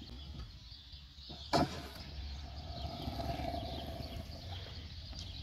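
Stunt scooter landing with one sharp clack about a second and a half in, then its wheels rolling over pavement with a faint whine.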